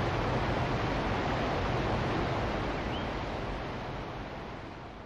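Steady rushing of a waterfall or fast mountain river, slowly fading out over the last couple of seconds.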